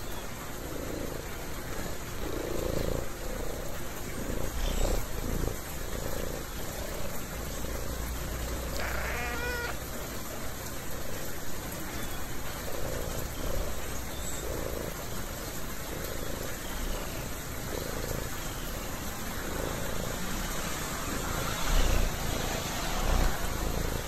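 Tabby cat giving a short rising call about nine seconds in, over a steady background hiss.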